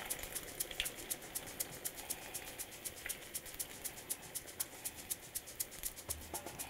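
Stuffed bread balls deep-frying in hot oil in a small frying pan: a steady sizzle with fast, irregular crackling pops, several a second.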